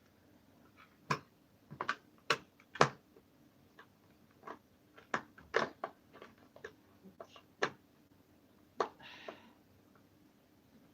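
Irregular sharp clicks and taps of a Torx screwdriver and screws against the hard plastic housing of a Dyson vacuum as the screws are put back in, with a brief scrape about nine seconds in.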